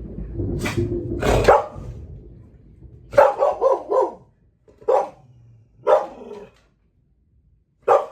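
A dog barking in short, separate barks, about nine in all, with a quick run of four in the middle. A low rumble sits under the first two barks.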